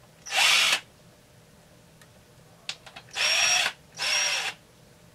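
Cordless drill-driver spinning in three short bursts, one near the start and two back to back about three seconds in, as it backs off the bar nuts on a chainsaw's side cover.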